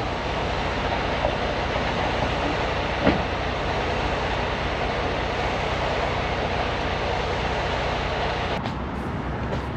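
Steady road and engine rumble of a semi-truck under way, heard from inside the cab, with one brief knock about three seconds in.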